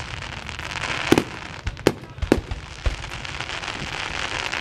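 Fireworks going off: several sharp bangs in quick succession over a continuous crackling and hiss.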